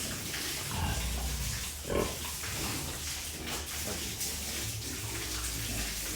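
Pigs grunting now and then over a steady rush of running water.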